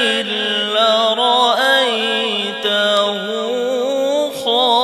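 A man reciting the Quran in a melodic tajweed style into a microphone, drawing out long, ornamented, wavering notes with a short break for breath near the end.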